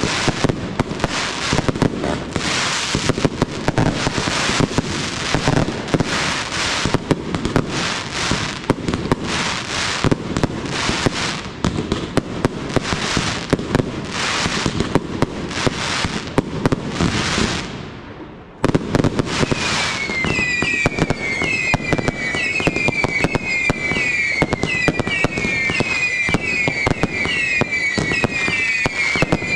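Fireworks display: a dense run of crackling bursts and bangs from aerial shells, fading out about two-thirds of the way through. After a short break the firing resumes with crackle and a rapid series of short whistles that fall in pitch.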